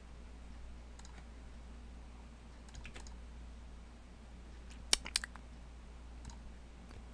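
Sparse computer mouse and keyboard clicks over a faint steady low hum, with a quick run of three or four clicks about five seconds in, the loudest moment.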